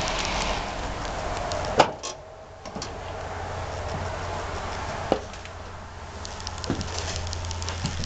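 Footsteps going up metal entry steps into a travel trailer and onto its floor: a few sharp knocks, the loudest about two seconds in. A low steady hum runs underneath once inside.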